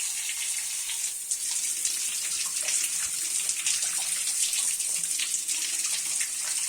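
Shower water running steadily, splashing onto and pouring over a hand-held 3D-printed Coanda screen tile.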